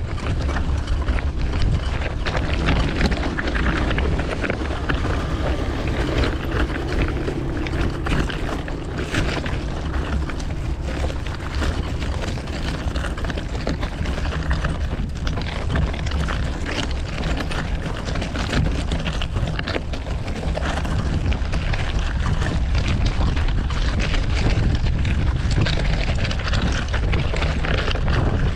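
Wind rushing over the microphone of a camera on a moving bicycle, with city street traffic running underneath.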